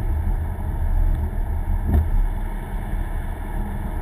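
Steady low rumble of road and engine noise heard from inside a moving car's cabin, with a brief thump about two seconds in.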